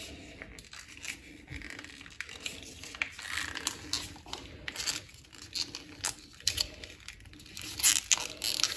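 A packet of ready-made mulled wine mix crinkling and rustling as it is squeezed and emptied into a saucepan, in irregular crackles with a louder flurry near the end.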